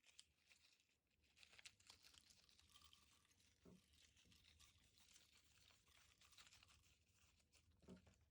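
Near silence, with faint, scattered soft crackles and clicks.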